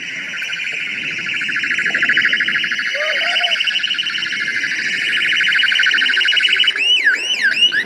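Electronic siren sounding loudly as a fast, pulsing warble. About seven seconds in it switches to a quick rising and falling sweep.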